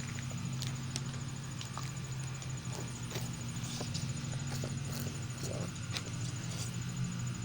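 Room tone: a steady low hum with a few faint, scattered clicks.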